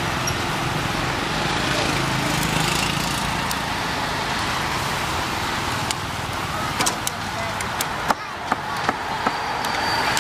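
Street-market ambience: a steady wash of traffic and background voices. In the second half come a few sharp metallic clicks of tongs against the grill grate as the meat is turned.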